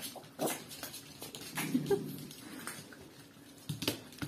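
Several small poodles jostling around a petting hand: rustling fur, scuffling paws and scattered light clicks, with a short low sound about two seconds in.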